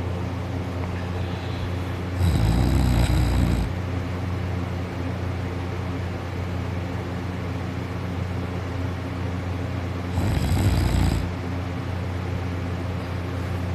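A sleeping person snoring loudly: two snores about eight seconds apart, each lasting a second or so, over a steady low hum.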